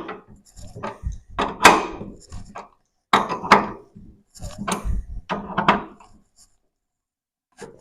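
Hand tools knocking and clanking on metal suspension hardware in irregular strokes while the coilover strut-top fasteners are tightened. The sounds stop about a second and a half before the end.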